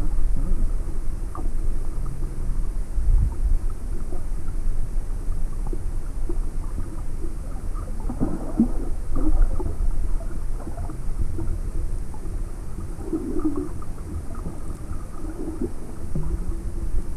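Muffled underwater rumble of water moving past the camera housing, with scattered crunching, tearing bursts from a sea turtle biting off seagrass, clustered about halfway through and again a little later.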